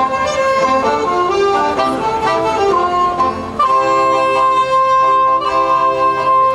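A saxophone ensemble (soprano, alto, tenor and baritone saxophones) playing an arranged tune in harmony; from about three and a half seconds in they hold longer chords over a steady bass note.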